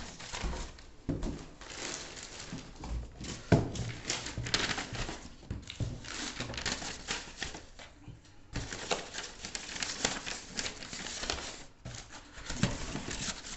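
Paper and cardboard rustling and scraping as manuals and papers are stuffed back into a cardboard laptop box, with small clicks and one sharp knock of the cardboard about three and a half seconds in.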